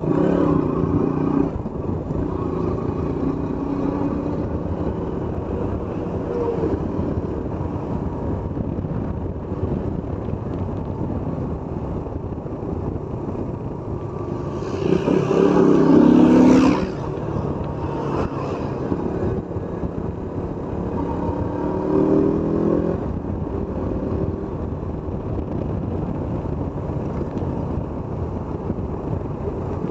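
KTM motorcycle's single-cylinder engine running under way, pitch shifting with the throttle, with wind rushing over the microphone. About halfway through it revs harder and the pitch climbs for a couple of seconds as the bike accelerates.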